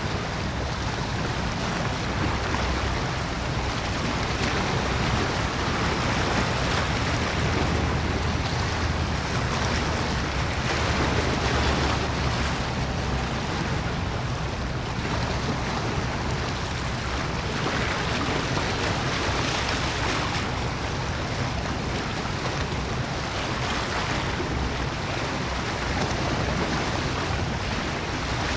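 Steady wind on the microphone over the wash of sea water, swelling every few seconds, with a low hum underneath.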